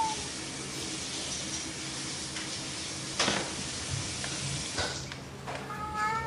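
A long-haired tabby cat meows once near the end, a short call. Before it comes a steady rustling hiss with a sharp click about three seconds in, as the cat rubs its face against the sisal-rope post of its cat tree.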